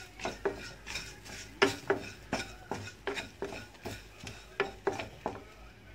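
A spatula scraping and stirring fried onions and ground spices around a nonstick pan, in repeated short strokes about two a second.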